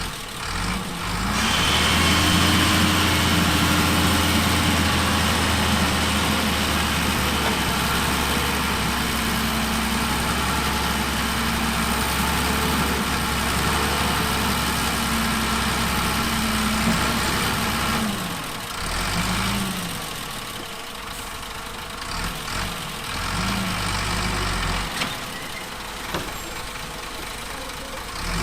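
Heavy diesel engine of earthmoving machinery revving up about a second in and running hard at a steady pitch. After about eighteen seconds it drops back toward idle, with a few short revs.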